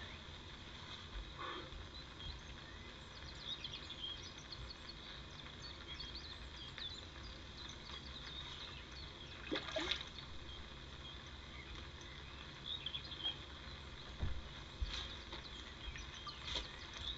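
A hooked carp splashing and sloshing the water at the surface near the landing net, with small birds chirping in the background and a few brief low knocks.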